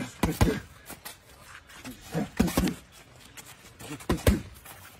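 Sharp slaps of boxing gloves landing on gloves as punches are thrown in sparring, a quick pair at the start, another pair a little past two seconds and a single hit past four seconds.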